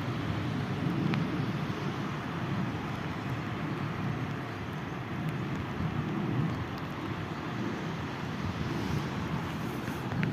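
Steady rain with wind buffeting the microphone, giving a constant low rumble and hiss with a few faint ticks.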